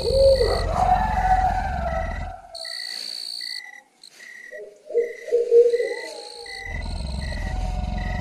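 Nature-style soundscape of insect-like chirps pulsing about twice a second over steady high tones, with gliding, hooting bird-like calls. A low rumble drops out for a few seconds in the middle.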